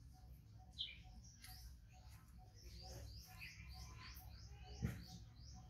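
Faint, high-pitched animal chirping: short downward-sliding chirps repeating about three times a second, with a steady lower pulse behind them. A single thump stands out about five seconds in.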